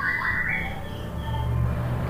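Orange-headed thrush singing a soft, quiet warble of short stepped notes that fades out about half a second in, over a low steady hum.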